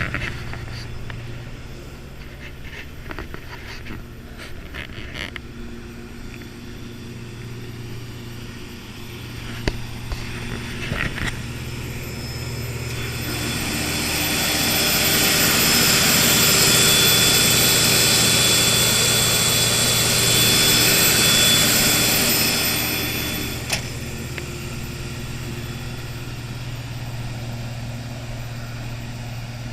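HIPOWER HFW300 diesel generator set running steadily under load, a low steady engine hum. A little before halfway through, a louder rushing sound builds up, holds for about ten seconds, then drops back abruptly.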